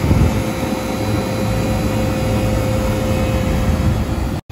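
Walk-in cooler's condensing unit running steadily after its refrigerant recharge: condenser fan and compressor noise with a faint steady hum. It cuts off abruptly near the end.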